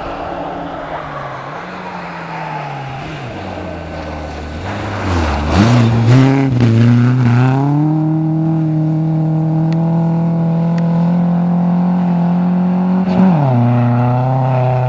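Rally car engine on a snow stage: the revs fall as it slows into the turn, a rush of noise comes as it goes through about five seconds in, then the engine holds high, steady revs as it accelerates away, with a gear change about two seconds before the end.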